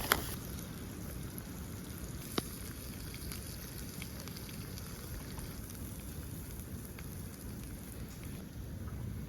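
Eggs and bacon sizzling in a pan over a campfire, a steady crackling hiss, with a sharp click just as it begins and another a couple of seconds in.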